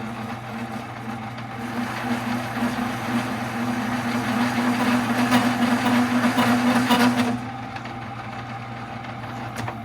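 Metal lathe cutting across a hard weld bead on a steel PTO yoke: a harsh, rough cutting noise over the steady hum of the running lathe, with chatter that the machinist puts down to the weld being hard. The cutting stops suddenly about seven seconds in while the lathe keeps running.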